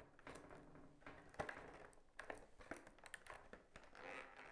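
Faint clicks and crinkles of a thin clear plastic egg carton being handled and set onto its cut-off lid, with a sharper click about a second and a half in.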